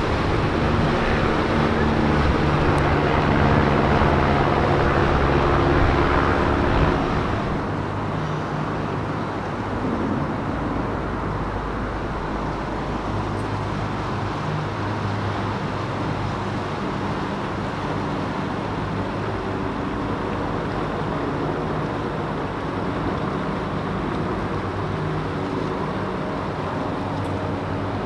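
Boat engine running with a steady low drone, louder over the first seven seconds or so, then dropping a little and running on evenly.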